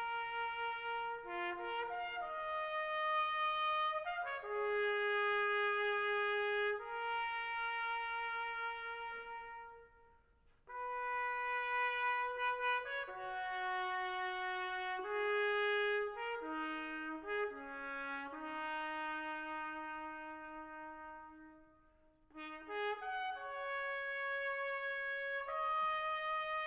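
Slow brass music led by a trumpet: sustained notes in three phrases, separated by two short pauses.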